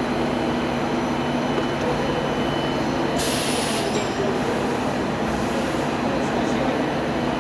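Tube punching machine running steadily with a low mechanical hum, and a brief hiss about three seconds in.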